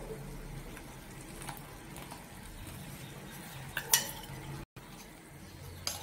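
A faint steady sound of cooking on the stove, then about four seconds in a brief sharp metallic clatter in the stainless steel pan as fried cashews and raisins are tipped into the rava kesari.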